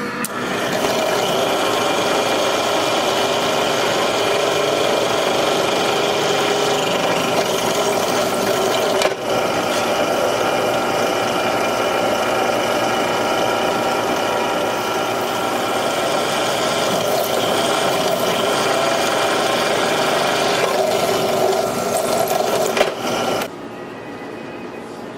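A power tool running steadily as it grinds a metal knife part. It pauses briefly about nine seconds in and stops suddenly near the end.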